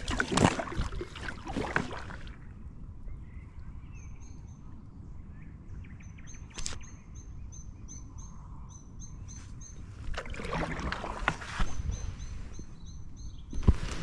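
Kayak paddle strokes splashing in the water in two short bouts, one at the start and one about ten seconds in. Between them a small bird sings a short, high chirp over and over.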